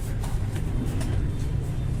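Faint plastic clicks from handling a box of mechanical keyboard switches, over a steady low hum.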